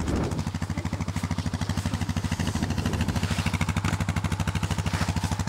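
An engine running at a steady idle, with a fast, even beat.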